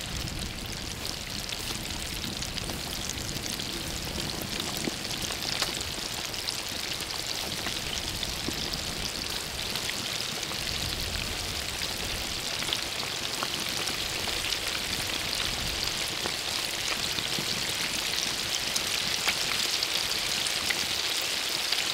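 Flour-coated chicken breast pieces deep-frying in a large wok of hot oil: a steady, dense sizzle and crackle of bubbling oil.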